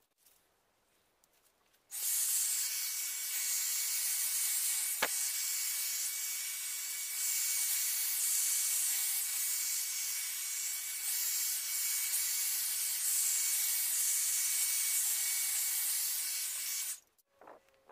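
Hair dryer switched on about two seconds in, running with a steady rush of air and a faint motor whine as it blows wet acrylic paint, then switched off near the end. A single sharp click partway through.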